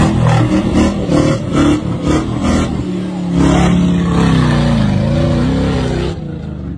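Off-road buggy engine revving hard under load on a steep dirt climb, its pitch rising and falling. The engine sound drops away suddenly about six seconds in.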